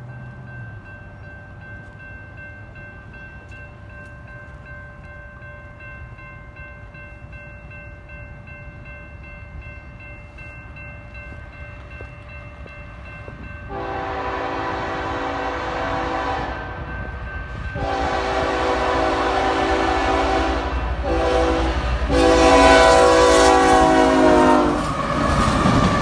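A grade-crossing bell rings steadily. About 14 seconds in, the horn of a Union Pacific GE C45AH locomotive sounds the crossing signal: two long blasts, a short one and a long one. The train's locomotives then pass close, their engines and wheels growing louder near the end.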